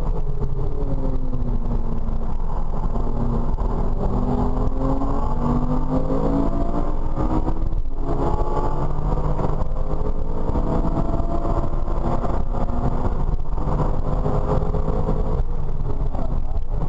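Porsche Cayman R's 3.4-litre flat-six engine heard from inside the cabin under hard track driving. It rises and falls in pitch as it accelerates, with brief breaks about 8 and 13 seconds in, over a constant low rumble of road noise.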